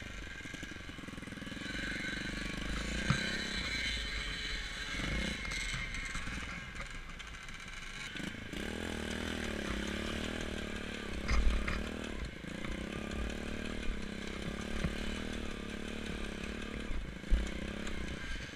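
Small off-road motorcycle engine running at varying revs, its pitch wavering up and down, with a few sharp thumps.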